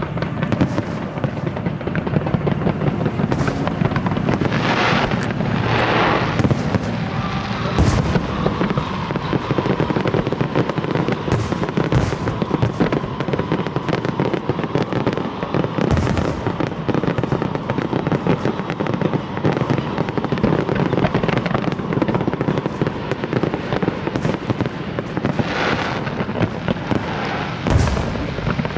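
Aerial fireworks going off without a break: a dense, continuous crackle and popping, with a few louder sharp bangs and a couple of brief hissing swells.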